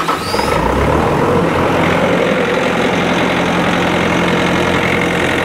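Bobcat skid-steer loader's common-rail diesel engine catching just after being cranked, its speed rising over the first second or so, then settling into a steady idle.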